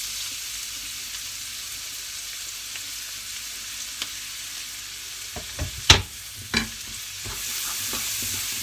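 Chopped onion and garlic sizzling in butter and olive oil in a pan, with a few knocks of a utensil stirring against the pan, the loudest about six seconds in. The sizzle grows a little louder near the end.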